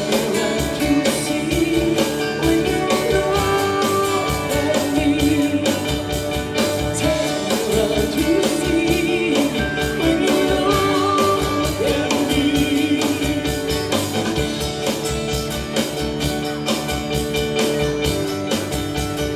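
Live country band playing an amplified song with a steady drum beat, bass, electric guitars and keyboard, and a woman singing lead.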